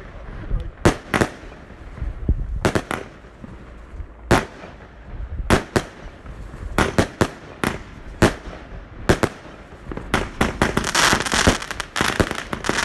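A consumer fireworks battery (cake), 'Lumberjack' from China Red, firing. Its aerial shells burst with sharp bangs roughly every second. From about ten seconds in comes a dense run of rapid crackling pops.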